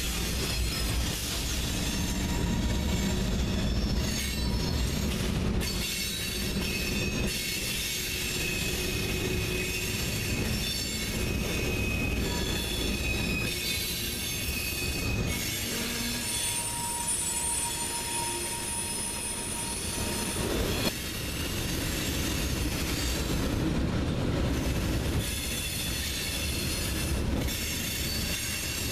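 Freight train rolling past at close range: a BNSF diesel locomotive goes by at the start, then a long string of hopper, tank and box cars. Steady rumble of wheels on rail, with thin high-pitched wheel squeal that comes and goes.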